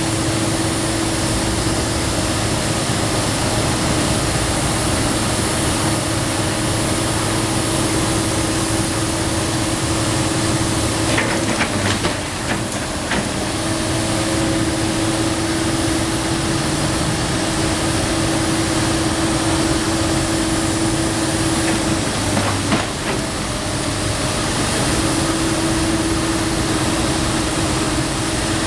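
Komatsu PC290 NLC excavator's diesel engine working under load, with a steady whine over the engine noise that drops out twice, about halfway through and again about three-quarters through. A few sharp knocks come with those breaks, typical of demolition debris being struck or dropped.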